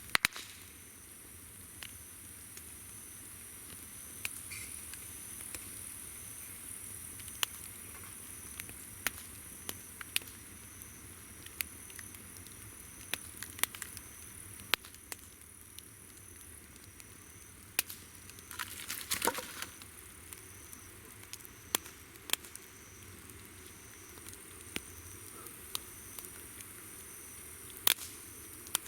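Wood campfire crackling with scattered sharp pops and a short denser flurry of crackle about two-thirds of the way through. Behind it, insects keep up a steady high chirring, and a second insect call pulses evenly at a slightly lower pitch.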